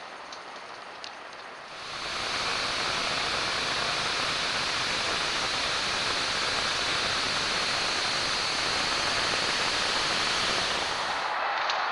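Two-stage gas snowblower running while it clears snow: a steady rushing noise that comes in about two seconds in and holds, with no clear engine note above it.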